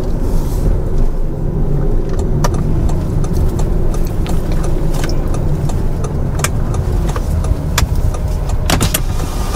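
Car driving, heard from inside the cabin: a steady low rumble of engine and road noise, with a few scattered clicks and knocks.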